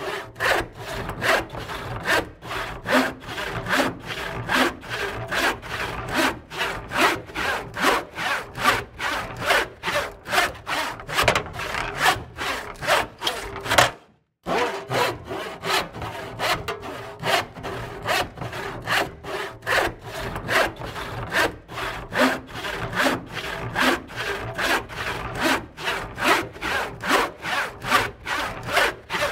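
A hand saw cutting wood in steady back-and-forth strokes, about two to three a second. The sound cuts out for a moment about halfway, then the strokes resume.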